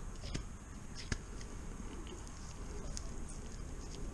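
Handling noise from a round neodymium fishing magnet with an eyebolt being turned over in latex-gloved hands: two sharp clicks in the first second or so, then a few faint ticks.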